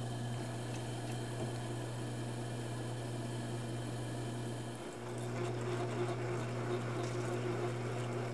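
Metal lathe running with a steady motor hum while a drill bit turning in the spindle bores into the end of a copper spot-welder tong held in the tool post; the cutting noise grows a little louder and rougher over the second half.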